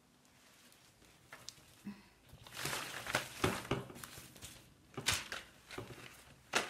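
Quiet paper rustling from rolled-newspaper sticks being handled, with a few small clicks and two light knocks on a glass tabletop near the end.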